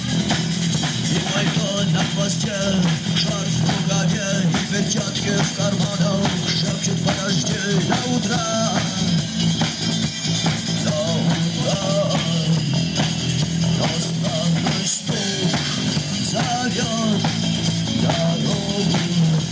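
Rock band playing a post-punk song, with drum kit and guitars.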